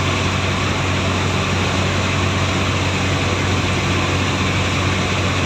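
A passenger boat's engine running steadily with a low, even drone, under a constant rushing noise of wind and water.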